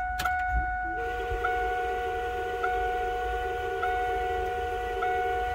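Electric fuel pump humming steadily as it primes with the ignition on. It starts about a second in with a brief rise in pitch, then holds even until it cuts off near the end.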